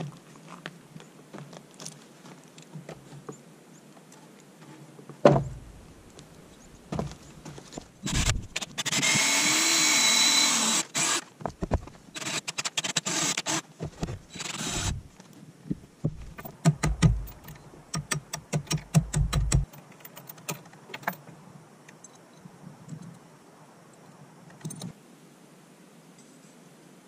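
A power drill runs for about three seconds, its motor speeding up and slowing, then in a string of short trigger bursts. Around it are scattered knocks of work on wood: one loud knock about five seconds in, and a run of about eight quick, even strokes near the middle.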